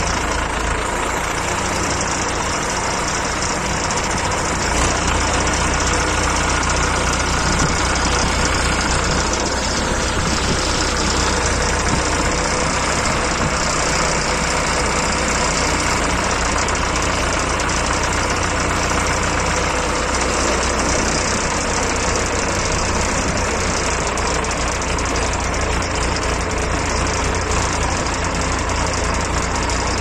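An engine idling steadily.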